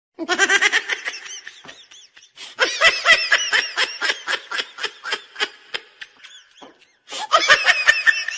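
Funny laugh sound effect: a high-pitched giggling laugh in three bouts of quick pulses, about five a second, the longest bout in the middle.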